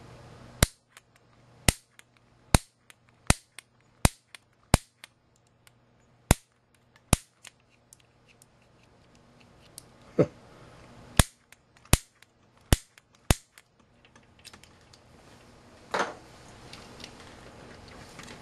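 Piezo gas grill starter clicking, a sharp snap with each press as it fires a static discharge into a multimeter's input terminals. There are about eight snaps less than a second apart, a pause, then about five more, and a duller thump near the end.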